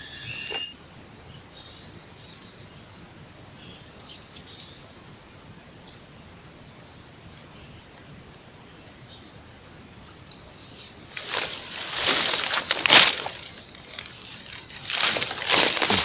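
Insects droning steadily at a high pitch in the riverside vegetation. From about ten seconds in, a run of loud, irregular scuffs and rustles comes over them.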